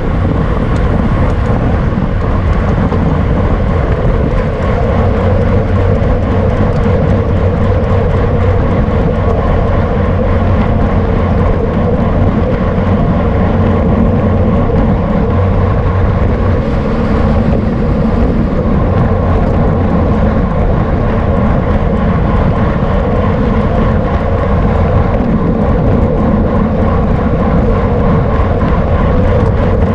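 Steady wind noise on the microphone of a camera carried on a bicycle at racing speed, with an even, unbroken rush.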